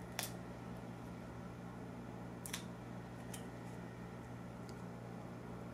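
A few small sharp clicks from handling a portable headphone amplifier's circuit board and battery as they are fitted together: one just after the start, another about two and a half seconds in, then fainter ticks. A steady low hum runs underneath.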